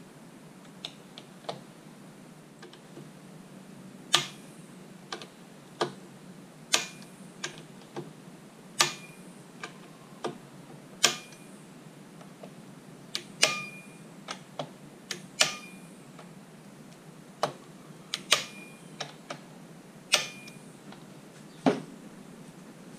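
Torque screwdriver tightening scope-ring screws: a series of sharp, irregular clicks about one a second, several followed by a brief ringing tone.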